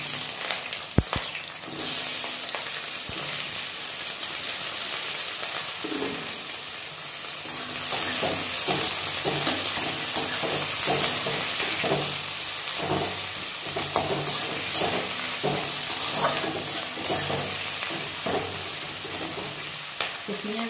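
Sliced onions sizzling in hot mustard oil in a metal kadai, the start of frying them. Through the second half a spatula stirs them with repeated scraping strokes against the pan.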